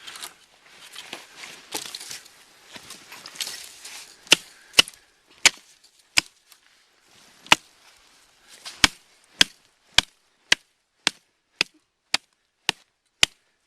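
Fire Hawk hatchet chopping a skinny tree low near its base. After a few seconds of rustling, sharp strikes begin about four seconds in and come roughly twice a second.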